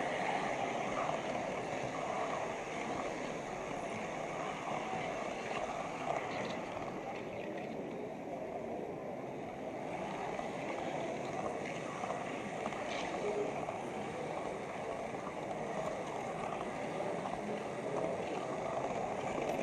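Model railway wagon carrying an on-board camera rolling along the track: a steady rolling rattle of its wheels on the rails, heard from the wagon itself.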